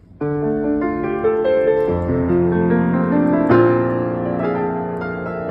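Keyboard instrument with a piano sound playing a sequence of notes and chords, starting abruptly just after the beginning, with a louder chord struck about three and a half seconds in.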